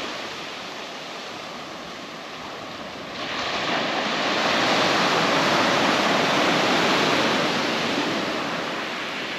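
Surf breaking and washing up a black volcanic beach: a steady rush that swells louder about three seconds in as a wave comes ashore, then slowly eases.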